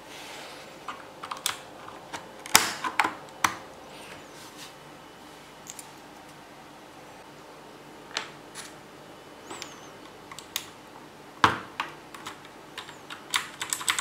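Scattered plastic clicks and snaps of keycaps being pulled off and pressed back onto the Cherry MX blue switches of an Armaggeddon Stealth Raptor MKA-7 mechanical keyboard with a keycap removal tool, with quiet stretches between. Near the end the clicks come closer together.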